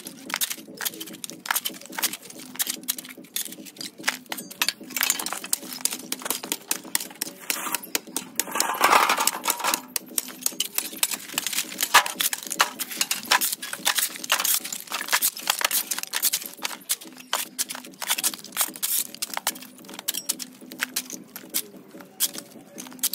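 Long-handled metal hoes scraping across dirt and debris, with a steady run of clattering clicks as broken brick and roof-tile fragments are raked and scooped into a metal wheelbarrow. A louder rush of scraping comes about nine seconds in.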